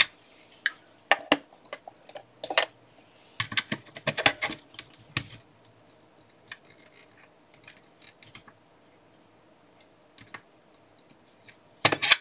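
Clicks and light clatter of small hard parts being handled, the cells and casing of a battery pack under test. The clicks come in clusters, thin out to faint ticks in the middle, and a few loud ones return near the end.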